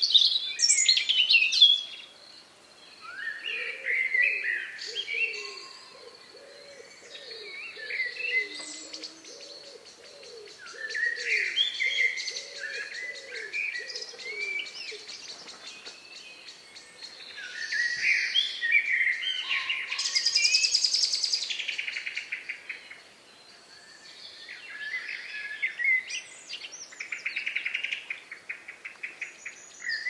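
Several forest birds singing, with overlapping whistled phrases, chirps and rapid trills. A lower-pitched bird repeats a short call about once a second through the first half.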